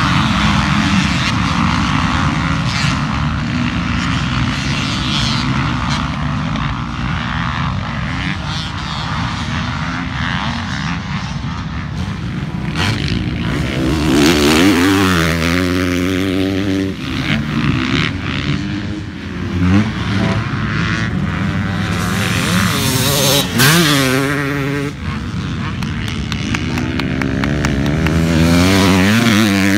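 A pack of motocross dirt bikes racing together, many engines running at once in a dense din. About halfway through, a single dirt bike passes close, its engine revving up and dropping back several times as the rider accelerates and shifts through a corner.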